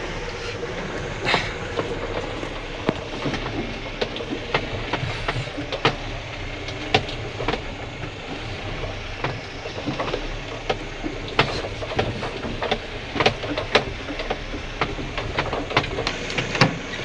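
Inside the cab of a Mahindra Bolero Camper 4x4 pickup crawling over a rutted mud track: the diesel engine runs low and steady while the body and cabin fittings rattle, with many sharp irregular clicks and knocks as it lurches over the ruts.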